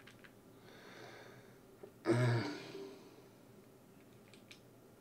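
A man breathes in softly, then lets out a short voiced exhale about two seconds in, like a sigh. A few faint clicks come near the start and again near the end.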